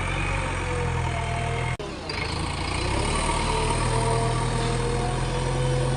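Heavy diesel engine running steadily, with a higher whine that slowly rises and falls. The sound cuts out for an instant just under two seconds in.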